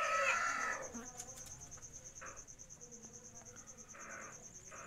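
Domestic hen calling right at the start, with two shorter, fainter chicken sounds later, over a steady high pulsing insect trill typical of crickets.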